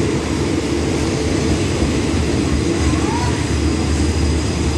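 Diesel-hauled express train standing at the platform with its engines running: a steady low drone.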